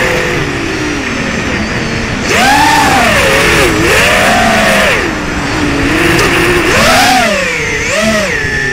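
ZMR250 racing quadcopter's brushless motors and propellers whining, heard from the onboard camera, the pitch swooping up and down several times with throttle changes.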